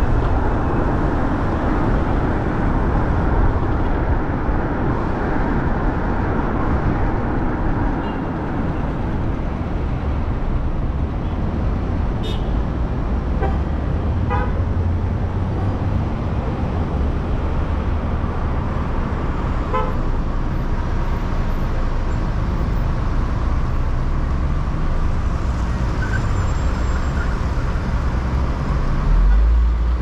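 Steady road traffic noise with a deep low rumble from a moving vehicle's ride along the road. Short car horn toots sound a few times about halfway through, and once more a few seconds later.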